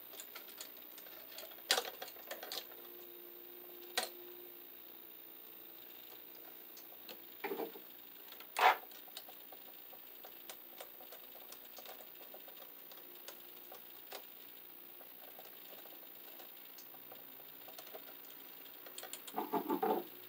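Small scattered clicks and taps of pliers and a screwdriver on a wall outlet's terminal screws and wires as the white wires are looped onto the silver screws and screwed down. A few sharper clicks stand out, and there is a quick cluster of taps near the end.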